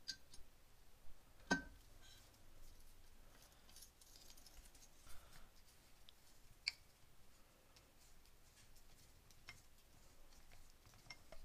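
Near silence broken by a few faint, short clicks of metal tool work: a Torx bit seating in and turning a handguard screw with an inch-pound torque screwdriver. The loudest click comes about a second and a half in.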